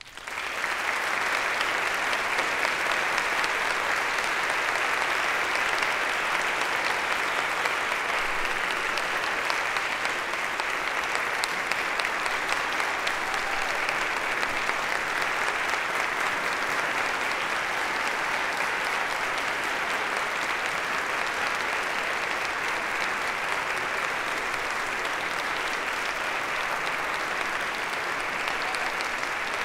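Audience applauding, breaking out suddenly and continuing as steady, dense clapping.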